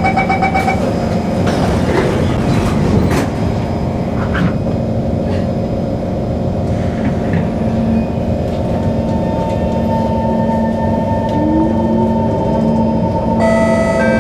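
Singapore MRT train at a station: a quick run of door-closing beeps in the first moment, then a few knocks as the doors shut. Over a steady rumble, the train then pulls away, its electric traction motors whining and a tone rising in pitch as it gathers speed.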